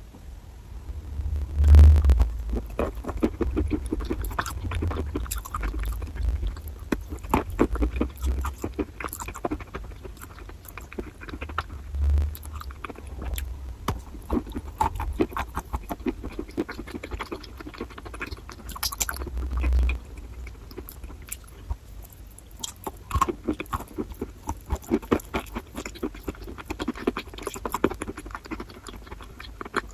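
Chalk being bitten and chewed close to the microphone: a steady run of crisp, wet crunches and crackles, with a few heavier low thumps, the loudest about two seconds in.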